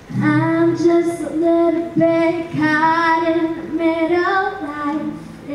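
A young girl sings solo into a microphone with long held notes, accompanying herself on acoustic guitar. The song begins right at the start.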